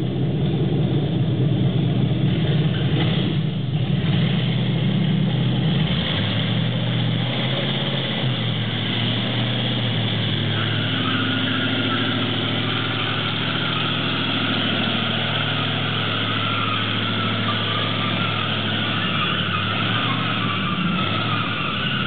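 Chevrolet 396 big-block V8 running, busier over the first six seconds and then settling into a steady idle. A steady higher hiss joins from about ten seconds in.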